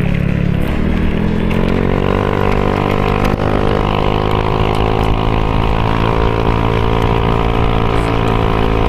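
Honda scooter engine droning at riding speed, its pitch rising about a second in and then holding steady, with wind rumbling on the microphone.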